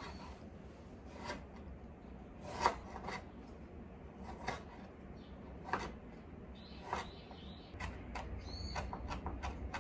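Kitchen knife chopping frozen galangal on a wooden cutting board: single chops about every second, then a quicker run of chops near the end.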